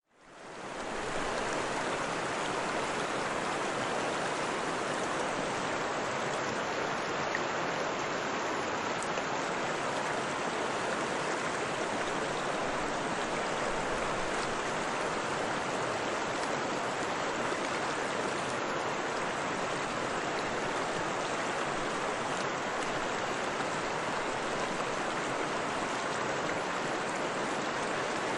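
Running water flowing steadily with an even rushing hiss, fading in over the first second.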